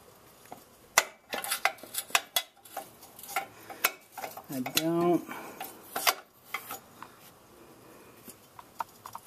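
Metal wrench clinking and clanking against the oxygen sensor and exhaust parts in irregular sharp clicks, the loudest about a second in, as the tight upstream O2 sensor on the Dodge 4.7L V8's exhaust is worked to break it free. A brief voice sound, like a grunt of effort, comes about five seconds in.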